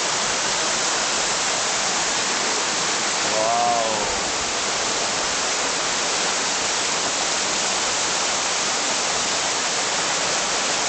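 Waterfall: a steady, loud rush of falling water, with a brief voice about three and a half seconds in.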